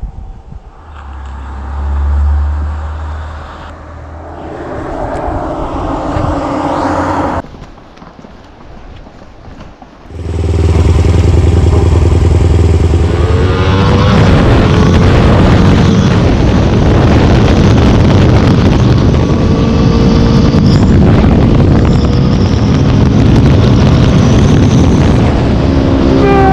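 Kawasaki motorcycle running. The sound drops away about seven seconds in, then comes back loud and steady about ten seconds in and holds to the end.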